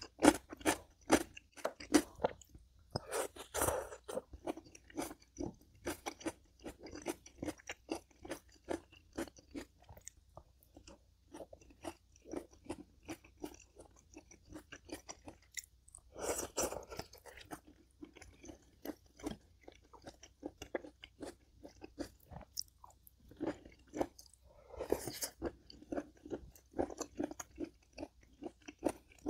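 Close-miked chewing and crunching of food, steady at about two chews a second, with a few louder, noisier moments about three, sixteen and twenty-five seconds in.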